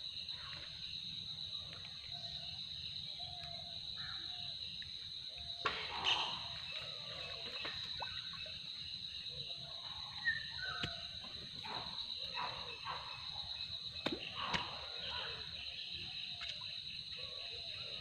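Steady high-pitched insect drone over river ambience, with short animal calls scattered through. A few sudden sharp splashes and knocks from a cast net being thrown and handled in shallow river water, one about ten seconds in as the net lands.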